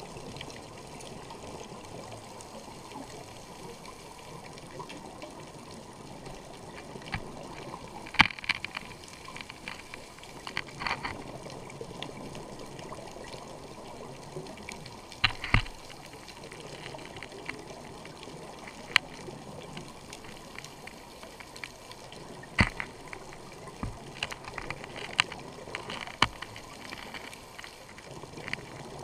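Underwater ambience: a steady hiss of water with sharp clicks and pops scattered through it. The loudest click comes about eight seconds in and a close pair comes around fifteen seconds.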